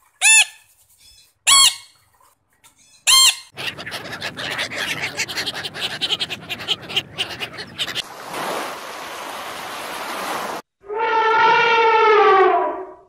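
A cockatiel gives three short, loud calls. A group of ducks then quacks in a rapid, dense run for about four seconds, followed by a stretch of steady noise. Near the end an elephant gives one long call of about two seconds, falling slightly in pitch.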